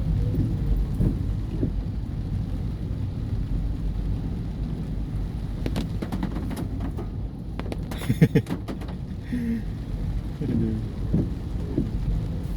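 Heavy rain pattering on a car roof, heard from inside the cabin over the low rumble of the moving car, with sharp knocks on the roof about six and eight seconds in.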